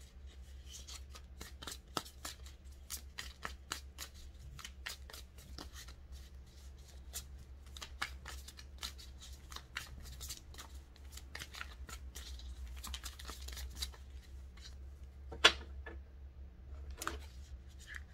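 A deck of tarot cards being shuffled by hand: a quick, continuous run of card snaps and slides, with a sharper snap about three-quarters through.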